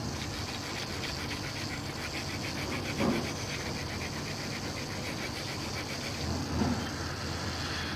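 Quick, even scrubbing strokes on a circuit board, rubbing off excess solder mask paint, over a steady low hum. A brief low bump comes about three seconds in.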